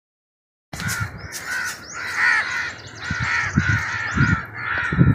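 Crows cawing over and over, starting abruptly under a second in, with a few low thumps mixed in.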